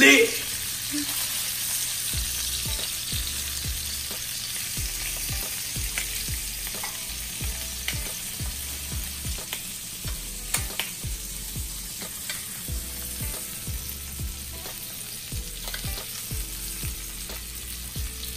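Duck breasts frying in rendered duck fat in a frying pan: a steady sizzling hiss with scattered spits and pops.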